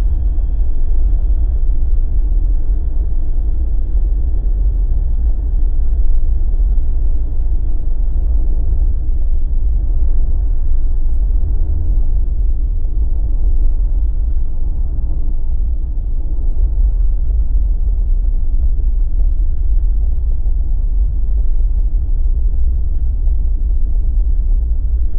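Steady low road rumble of a Jeep driving at speed, its BFGoodrich KO3 all-terrain tires and engine making an even drone with no sudden events.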